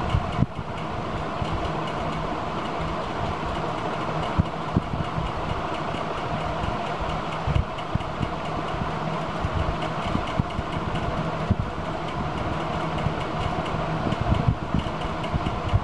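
Steady mechanical background noise, with a hum and scattered low thumps throughout.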